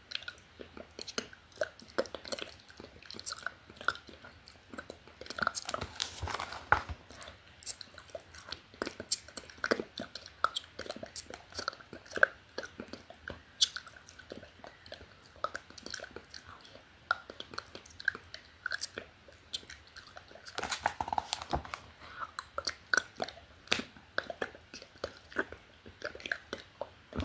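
Close-miked ASMR mouth sounds: quick, irregular wet clicks and smacks of lips and tongue, mixed with soft, unintelligible whispering.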